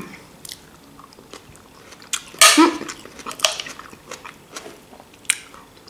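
A person biting and chewing fresh salad vegetables, tomato and cucumber, with moist crunching. The loudest burst of crunching comes about two and a half seconds in, and short clicks are scattered through the rest.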